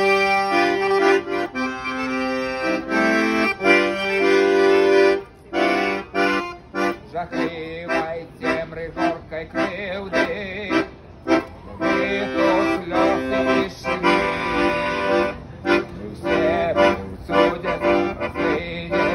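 Solo piano accordion playing the instrumental introduction to a song. It opens with a melody over sustained chords for about five seconds, then moves into quicker, shorter detached notes and chords.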